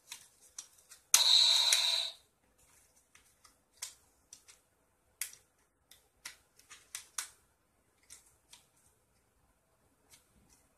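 About a second in, a loud rustling hiss lasting about a second, then scattered light clicks and taps, a few every second or two, of small objects being handled close to the microphone.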